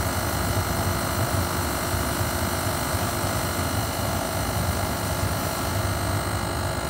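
Small 100-volt diesel gun-type burner running at full flame with its air turned up: the blower fan and the fire make a steady rushing hum.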